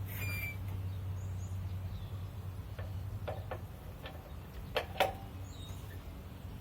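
A few sharp clicks and taps of hand tools, the loudest two close together about five seconds in, over a steady low hum. Faint bird chirps.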